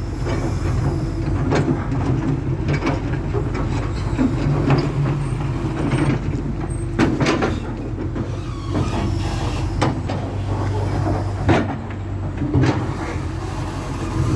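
Excavator diesel engine running steadily under load, with irregular knocks and scrapes as the bucket breaks up asphalt.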